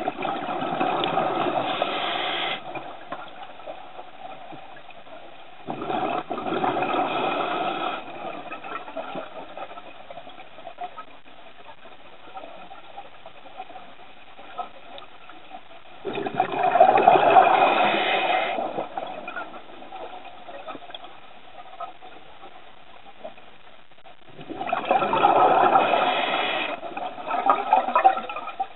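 Scuba diver breathing through a regulator underwater: four long exhalations, each a gush of bubbles lasting two to three seconds, with quieter stretches of hiss between them.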